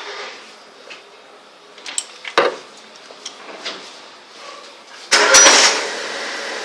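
A few scattered clicks and knocks, then about five seconds in a Fiat Palio Fire 1.0 engine is started: a short loud burst as it catches, settling into a steady run.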